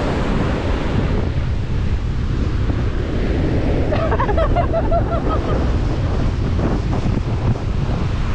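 Ocean surf washing steadily with wind buffeting the microphone, a constant loud rush with no breaks.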